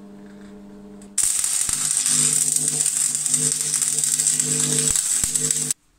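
Electric arc welding of a steel sprocket onto a steel drive shaft. A low steady hum comes first; about a second in the arc strikes and crackles steadily for four to five seconds, then cuts off suddenly.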